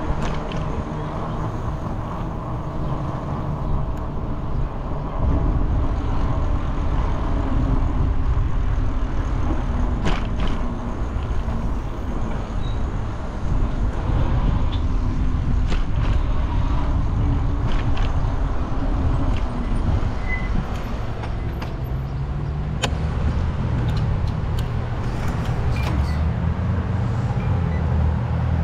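Motor vehicle engine noise, with a deeper engine hum coming in about three-quarters of the way through and holding steady.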